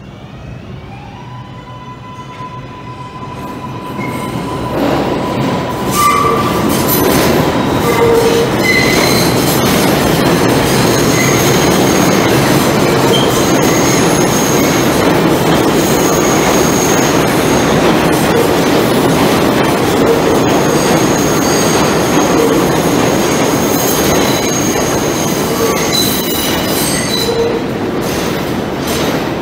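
New York City Subway train coming in and running along a curved track, its noise building over the first few seconds into a loud, steady rumble of wheels on rail. High-pitched wheel squeal comes and goes as it rounds the curve.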